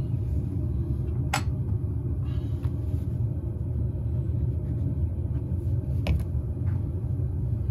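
A steady low rumble, with two sharp clicks, one about a second and a half in and one about six seconds in.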